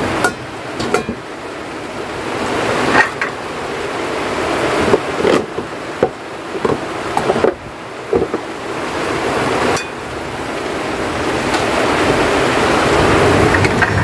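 Heavy rain and strong wind, a steady rushing noise that swells toward the end. Through it, a dozen or so sharp clinks and knocks of metal pots, bowls and glass tumblers being set down on a wooden shelf.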